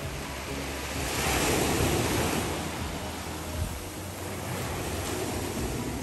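Small sea waves breaking and washing up the shore, the surf swelling loudest about a second in and then fading back, with wind buffeting the microphone.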